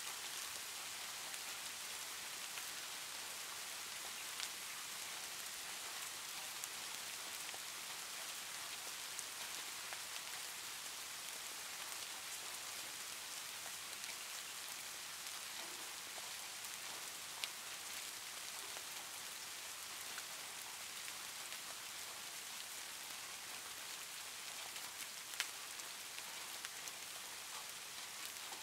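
Soft rain ambience: a steady, even hiss of gentle rain, with a few sharper single drop ticks now and then.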